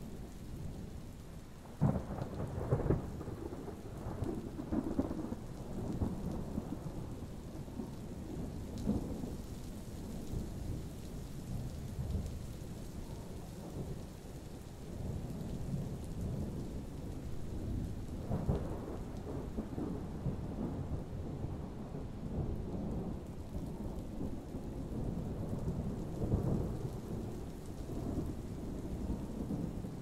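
Thunder rumbling and rolling over steady rain, with the sharpest cracks about two seconds in and further swells of thunder past the middle and near the end.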